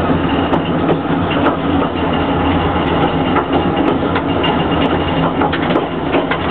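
Narrow-gauge train moving off slowly: a diesel engine runs steadily under the carriage's rolling rattle, with scattered clicks from the wheels and couplings.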